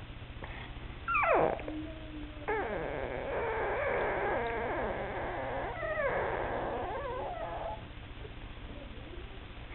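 Shih Tzu whining to be let up onto the couch: a sharp yelp that falls in pitch about a second in, then a long wavering whine lasting several seconds.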